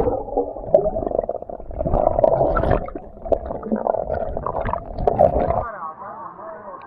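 Water recorded with the microphone underwater: a dull, muffled churning rush with bubbling, the low rumble dropping away about a second before the end.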